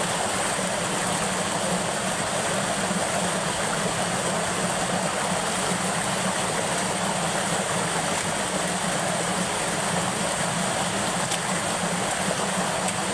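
Water rushing steadily over the low spillway at the gate of a small dam and running down a shallow channel.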